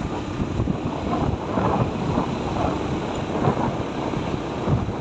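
Rumbling wind noise on the microphone over the steady noise of a vehicle moving along a road.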